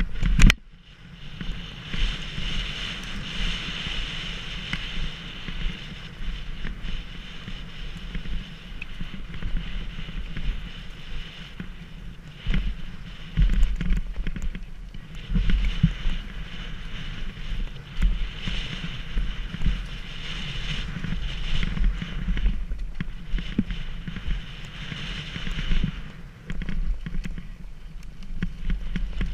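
Wind buffeting a moving camera's microphone over a low rumble, with frequent knocks and rattles as it goes down a rough downhill course.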